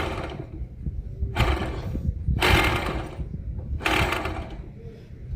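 A car's low rumble with four short, harsh scraping noises, the longest about halfway through: the noise fault under diagnosis, which is put down to a bearing.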